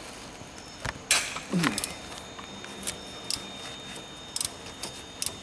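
Ratchet wrench with a hex-bit socket working the timing belt tensioner bolt loose, giving a handful of scattered sharp metallic clicks and clinks, the loudest about a second in.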